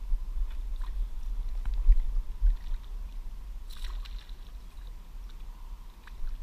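A hooked fish splashing at the water's surface, one short burst just before four seconds in, over a steady low rumble on the camera microphone.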